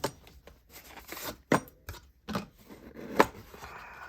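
Small objects being handled up close: a few sharp clicks and snaps with rustling between them, the loudest click about three seconds in.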